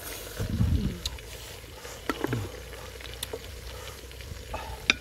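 Wooden spatula tapping and scraping in a metal cooking pot of fish and bamboo shoots, giving a few sharp clicks. A short low voice-like sound about half a second in is the loudest thing.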